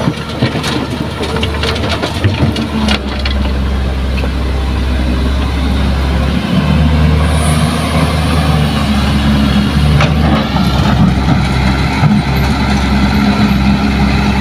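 Diesel engines of a Kobelco hydraulic excavator and a loaded dump truck running steadily. In the first few seconds there is a clattering rattle of soil and stones tipped from the excavator bucket into the truck's steel bed.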